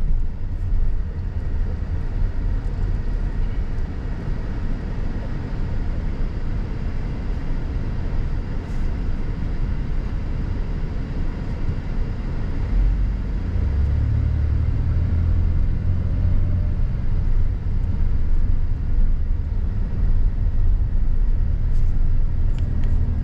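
Minivan driving along, a steady low rumble of engine and road noise that grows heavier about thirteen seconds in.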